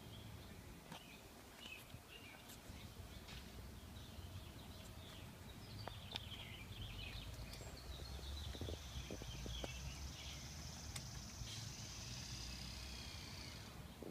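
Faint outdoor ambience with small birds chirping on and off, and a steady high trill that comes in about halfway through and holds until near the end.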